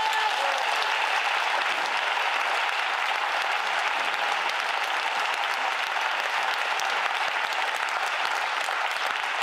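Audience applauding, a steady, even round of clapping.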